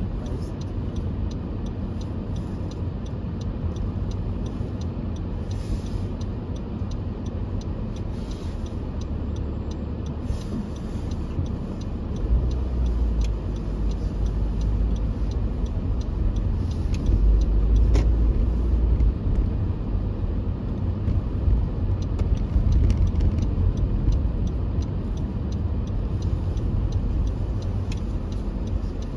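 Cabin noise of a car driving on a snow-covered street: a steady low rumble of engine and tyres, growing deeper and louder about twelve seconds in, with faint scattered ticks.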